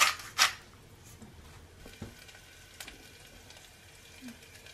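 A small seasoning shaker shaken twice over a saucepan at the start, then oil sizzling faintly and steadily in the pan on the gas burner.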